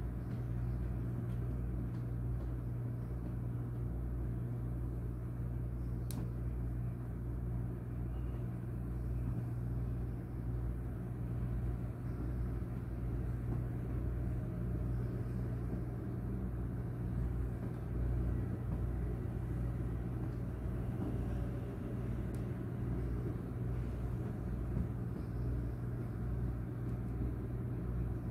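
A steady low hum, even throughout, with a single click about six seconds in.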